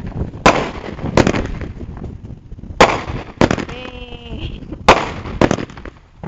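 Fireworks exploding: six sharp bangs, coming roughly in pairs, each followed by a trailing echo.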